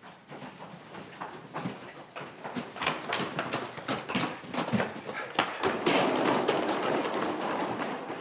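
Irregular clacking of rolling suitcase wheels and footsteps on a hard tiled floor, growing louder about halfway through, over a rising background murmur of a busy shopping arcade.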